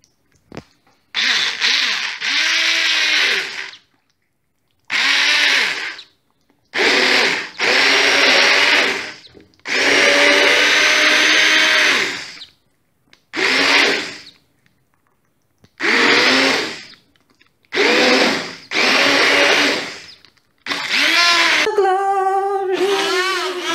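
Hand-held immersion blender running in about eight bursts of one to three seconds each, with short pauses between, puréeing chunks of butternut squash and vegetables into soup. Near the end the motor's pitch wavers up and down.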